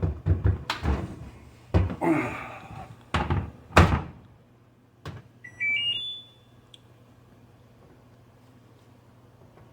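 Several clunks and knocks from handling the GE front-load washer, the loudest about four seconds in, then a short run of electronic beeps stepping up in pitch from the washer's control panel about five seconds in.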